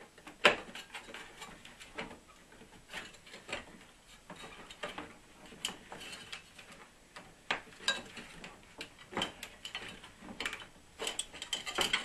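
Irregular clicks, knocks and scraping of a dehumidifier fan and motor being worked loose from its casing, with one sharp knock about half a second in and a quicker run of clicks near the end as it comes free.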